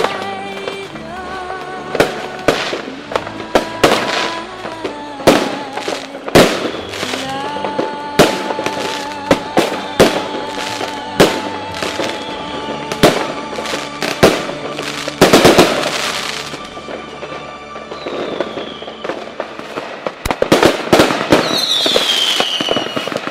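Fireworks going off: repeated sharp bangs and crackling bursts, roughly one every second or two, over music carrying a held, wavering melody. Near the end a high whistle falls in pitch.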